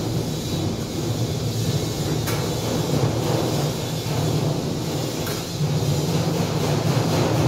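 Electric diamond chain saw for concrete running steadily, a low even rumble.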